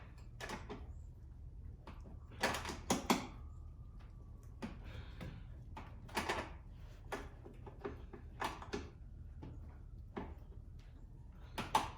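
Scattered metallic clicks, knocks and scrapes of hand tools at work: a 10 mm wrench on a stuck tow-mirror mounting nut while locking pliers (vice grips) hold the screw from turning. The strokes come irregularly, with a few louder knocks, over a faint steady hum.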